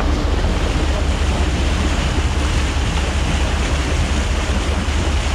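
Steady rush of churning, splashing water against a boat's hull, with wind buffeting the microphone in a heavy low rumble.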